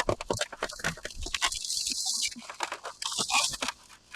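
Boots crunching through snow in quick, uneven steps down a slope.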